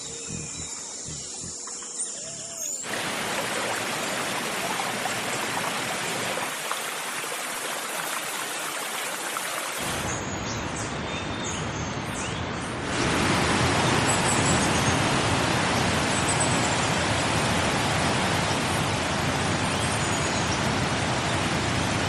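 A few faint high bird chirps, then a steady rushing noise from about three seconds in that grows louder about halfway through.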